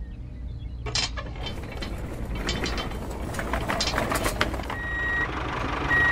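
Homemade mini tractor model's machinery running: a steady low hum with quick clicking and rattling of small gears. Two high electronic beeps near the end, like a reversing alarm.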